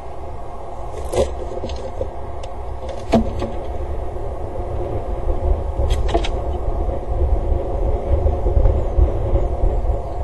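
Wind buffeting an outdoor webcam microphone: a fluctuating low rumble that grows stronger toward the end, with a few sharp clicks about one, three and six seconds in.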